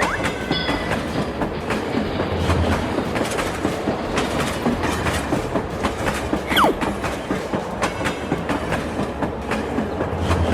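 Train running along the track, its wheels clattering steadily over the rail joints in a continuous clickety-clack. A brief falling squeal comes about six and a half seconds in.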